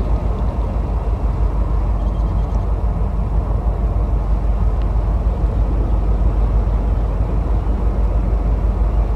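Diesel locomotive engine running with a steady, loud low rumble.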